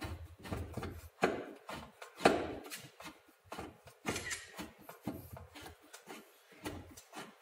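Hand screwdriver driving a screw into the corner of a metal clean room door frame: irregular clicks and scrapes of the tool on the screw and frame, with sharper knocks about a second and two seconds in.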